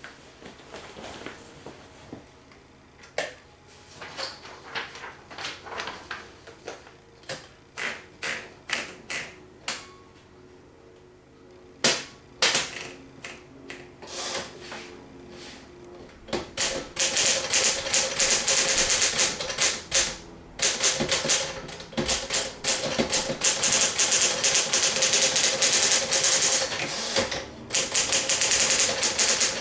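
1955 Smith-Corona Sterling manual portable typewriter: single, spaced-out key strikes and mechanism clacks for about the first half, then fast continuous typing from about 16 seconds in, broken by a couple of short pauses.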